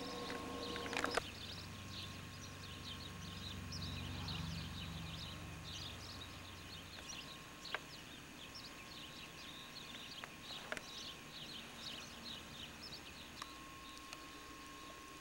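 Small birds chirping over and over through the whole stretch, with a low rumble in the first half that fades away, and a few sharp clicks.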